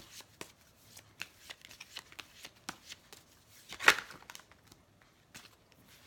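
An oracle card deck being shuffled by hand: a quick, uneven run of soft card clicks, then one louder card sound about four seconds in as a card is pulled from the deck and laid down, after which only a few faint clicks follow.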